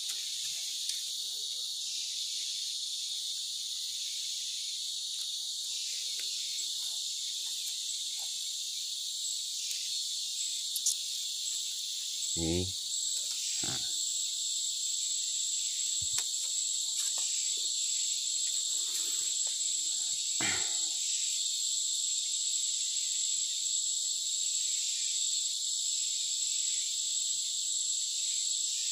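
Steady, high-pitched chorus of forest insects, with a thin continuous whine on top. A few short rustles and knocks come around the middle, with a brief voice-like sound about halfway through.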